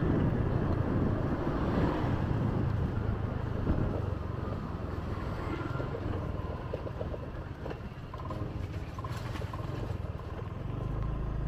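Riding a motor scooter: the small engine running under the rider, with wind noise on the microphone and tyre noise. It is quieter through the middle and builds again near the end.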